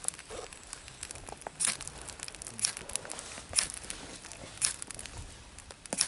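Knife blade scraped hard down a ferrocerium rod (fire steel), short sharp rasping strokes about once a second, striking sparks onto birch bark tinder.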